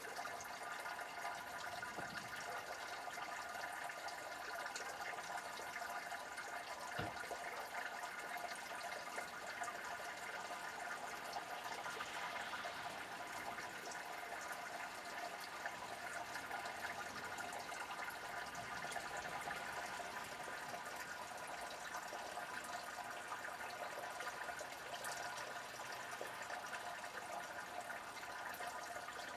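Steady rain from a thunderstorm, falling and running off in a continuous even wash of noise.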